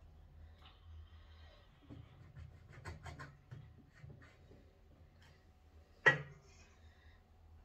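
Kitchen handling noises while working pelmeni dough: light scratches and taps, a cluster of small clicks about three seconds in, and one sharp knock about six seconds in, over a faint low hum.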